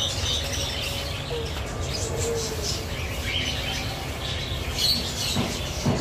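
Cage birds chirping: many short, high calls scattered throughout, over a steady low rumble.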